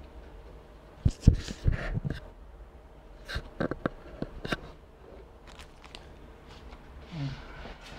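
Irregular soft knocks and clicks in two clusters, the loudest about a second in and more from about three to four and a half seconds in, with a few faint ticks after.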